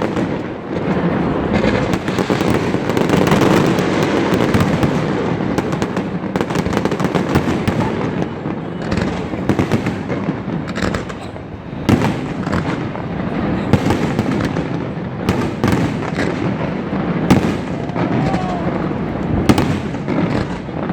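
Fireworks display going off in a dense, continuous barrage of bangs and crackling, with several sharper single bangs standing out in the second half.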